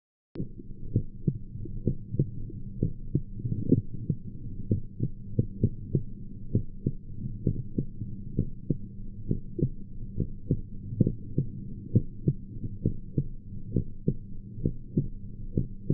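Human heartbeat recorded through a home-made digital stethoscope: regular, evenly spaced muffled beats over a low steady hum. It starts abruptly just after the beginning and cuts off at the end.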